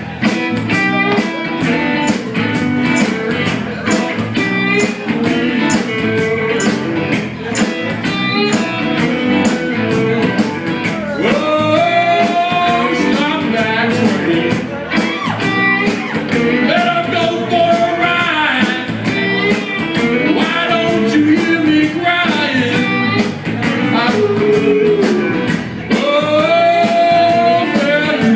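Live blues band playing: electric guitar over a steady drum beat. From about eleven seconds in, long held notes bend up and down over the groove.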